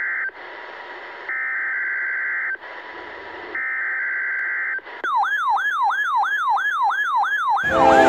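NOAA weather radio sounding the digital data header of an Emergency Alert System Required Weekly Test: three bursts of warbling data tones, each about a second long, separated by pauses of static hiss. About five seconds in a fast rising-and-falling siren wail begins, about three and a half sweeps a second, and near the end a diesel locomotive horn sounds over train rumble.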